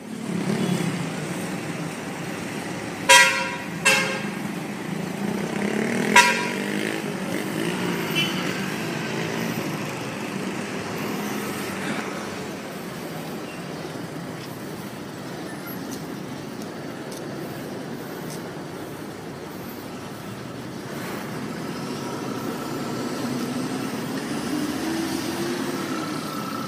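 Philippine National Railways diesel locomotive sounding its horn while approaching a level crossing: three short blasts, two close together about three seconds in and one more about six seconds in, over the train's steady rumble.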